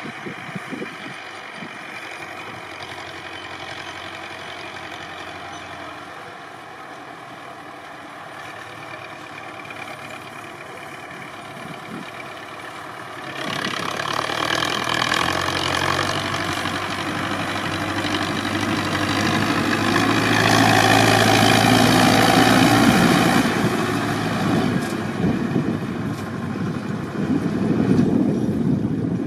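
Belarus 510 tractor's diesel engine running while it pulls a heavy load, getting much louder about halfway through and loudest a few seconds later as it passes close by.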